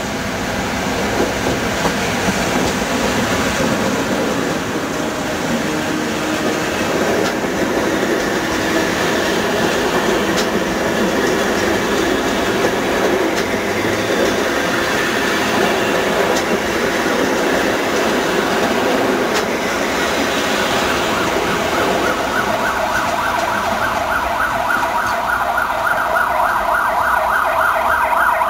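An EU07-family electric locomotive hauling a passenger train passes close by, its wheels rumbling over the rails as the coaches roll past. Near the end a pulsing wail comes up over the train noise.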